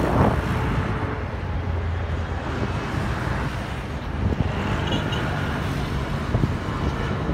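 Continuous road-traffic noise from the seafront boulevard: a steady, even rumble with no single event standing out.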